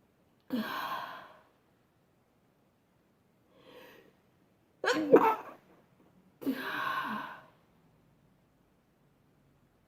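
A person sneezing: a sharp, loud sneeze about five seconds in, with a faint intake of breath shortly before it. Breathy bursts of air come out about half a second in and again about six and a half seconds in, each trailing a sneeze.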